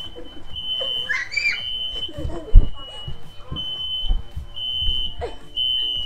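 Ceiling smoke alarm sounding, set off by cooking smoke: a high-pitched beep that repeats over and over with only short breaks. A heavy thump stands out about two and a half seconds in.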